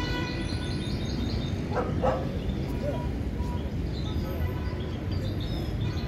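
Caged songbirds chirping faintly over steady market background noise, with one brief louder sound about two seconds in.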